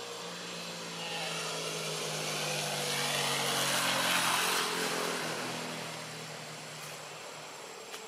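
A passing engine-driven vehicle: a droning engine that swells to its loudest about four seconds in and then fades away.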